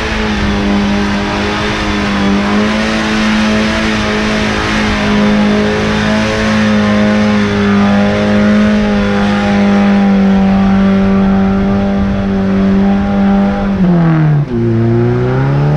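Off-road vehicle's engine running under load at steady high revs, then the revs drop sharply about fourteen seconds in and climb again.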